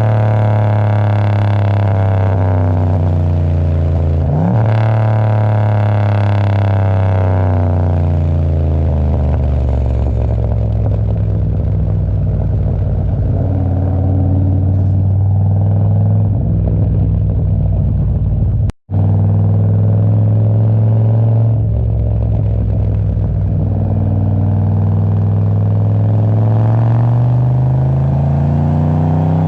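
Turbocharged LS1 V8 pulling at fairly low revs while the car is driven, its pitch sliding down, jumping up sharply about four seconds in, easing off, then climbing slowly near the end. The sound cuts out for an instant about two-thirds of the way through.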